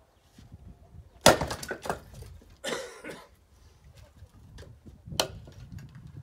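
A splitting axe strikes a log about a second in, and the split pieces clatter down. About a second later firewood rattles as pieces tumble onto the pile, and near the end a single sharp knock of wood on wood is heard.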